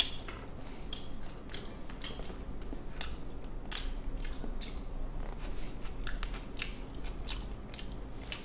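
A person chewing and biting food, with irregular small clicks and smacks, some from disposable wooden chopsticks picking at the food in a plastic convenience-store lunchbox tray.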